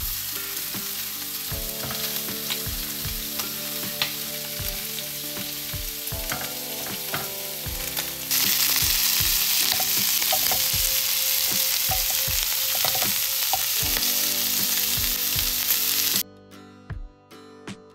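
Shrimp sizzling in olive oil in a nonstick frying pan while a wooden spatula stirs them, with small scrapes and taps against the pan. The sizzle gets louder about eight seconds in and drops off sharply near the end.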